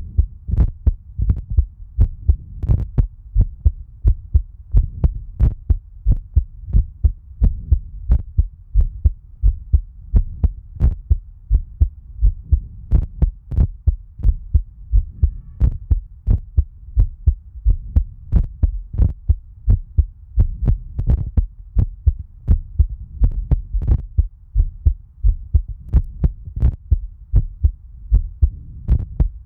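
A person's heartbeat recorded close up, a steady, regular run of deep low thumps.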